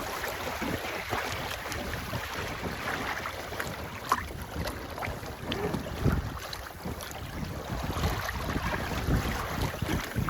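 Wind buffeting the microphone in gusts over a steady rush of water, as aboard a sailboat, with a few small knocks and clicks.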